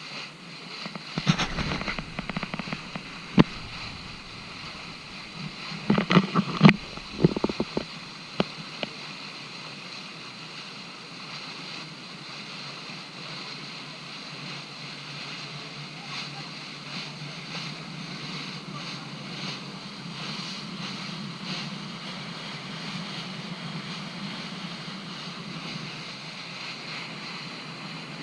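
A boat under way on open water: a steady rush of wind and water noise. It is broken by sharp knocks and thumps about a second in and again, loudest, around six to seven seconds in.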